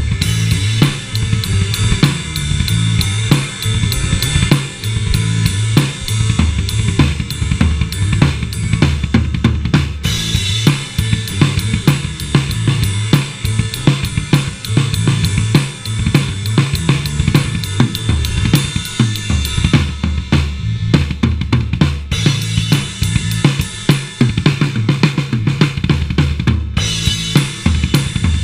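A live band jamming: a drum kit keeps a steady beat of kick, snare and cymbals under a line of low bass notes. It is picked up by a GoPro's built-in microphone close to the players.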